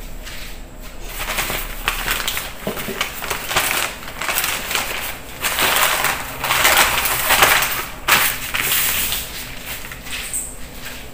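Sheets of newspaper rustling and crinkling as they are unfolded and smoothed flat on a table, in a run of rustles that starts about a second in, grows loudest past the middle, and eases off near the end.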